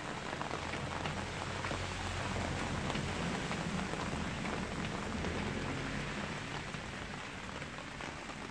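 Steady spring rain pattering on concrete and around the yard, with many individual drops ticking. A faint low hum runs through the middle.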